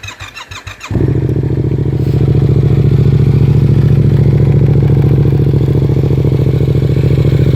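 2016 Yamaha FZ-07's parallel-twin engine cranking on the electric starter for about a second, then catching and idling steadily through a Yoshimura R77 aftermarket exhaust.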